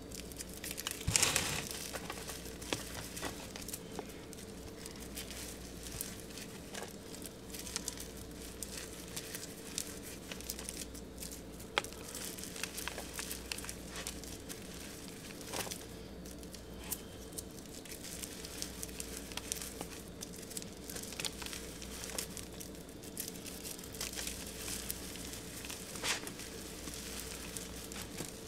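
Hands crumbling and rubbing dry, crumbly pink material flecked with confetti, giving a continuous crinkling, crackling patter of small crunches. There are louder crunches about a second in and again near the end.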